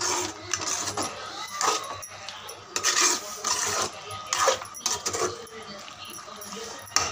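Spatula scraping and knocking against the sides of an aluminium kadai while stirring thick chicken masala, in irregular strokes.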